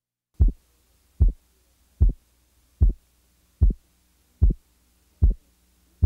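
Heart sounds from an auscultation recording: seven evenly spaced beats, about 0.8 s apart. The second heart sound is split by a 50-millisecond interval, the aortic and pulmonic valve closures heard just apart.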